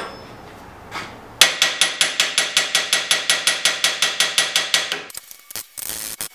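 Small hammer tapping fast and evenly on a thin high-carbon steel bar clamped on an anvil horn, packing powdered steel into its drilled holes. The taps start about a second and a half in and run for about four seconds at roughly eight a second, each ringing metallically, followed by a few scattered light clicks.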